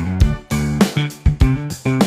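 Background music: a rhythmic track of plucked or strummed guitar over a steady beat.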